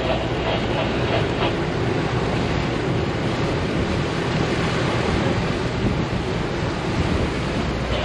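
Motor yacht under way at low speed: a steady rush of wind on the microphone and water along the hull, over a low engine hum.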